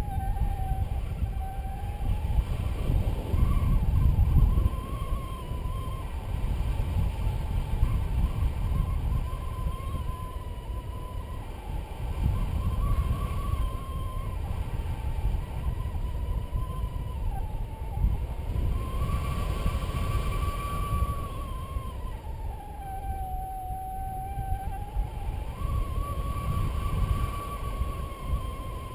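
Wind rushing over the microphone in flight, with a paragliding variometer's continuous electronic tone sliding up and down in pitch every few seconds, signalling lift and sink.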